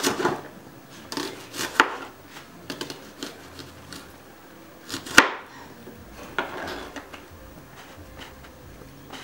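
Kitchen knife slicing an onion into rings on a plastic cutting board: irregular knocks of the blade against the board, the loudest about five seconds in, with lighter ticks between.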